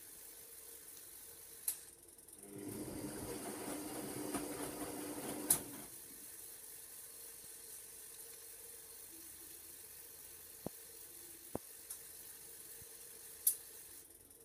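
Hoover washing machine in a water-fill test: a steady hiss of water runs throughout, the machine's motor whirs for about three seconds starting two seconds in, and sharp mechanical clicks sound three times, with lighter ticks near the end.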